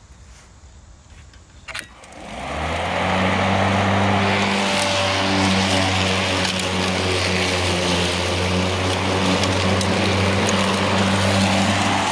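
Craftsman V60 cordless battery lawn mower: a click about two seconds in, then the blade motor spins up over about a second and runs steadily with a low hum and a rushing whir, winding down right at the end.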